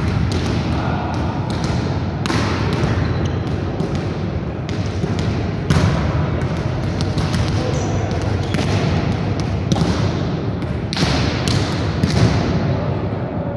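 Volleyballs being hit in spiking practice and bouncing off the hard gym floor: irregular smacks and thuds about once a second, each echoing through the large hall, over a steady low rumble.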